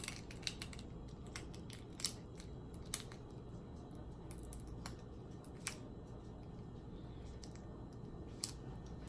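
Boiled crawfish shell being cracked and peeled apart by hand: scattered sharp cracks and snaps, the loudest about two seconds in, over a low steady hum.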